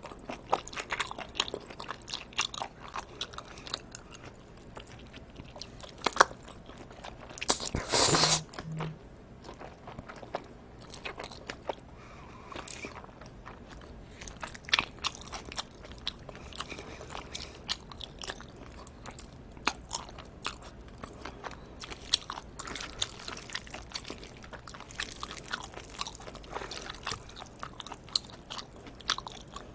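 Close-miked eating sounds from a meal of live octopus and cold bibim noodles: steady, irregular chewing and biting with many small wet clicks. There is a louder burst of noise about eight seconds in.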